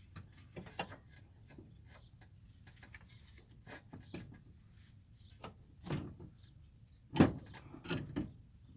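Scattered metal knocks and clunks as a new front strut is worked into line for its lower mounting bolts, the loudest about seven seconds in.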